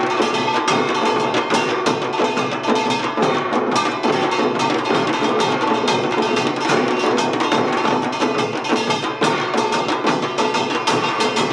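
Samul nori ensemble playing Utdari (Gyeonggi-style) samul garak: kkwaenggwari small gong, jing gong, janggu hourglass drums and buk barrel drums struck together in a dense, continuous rhythm over the ringing of the gongs.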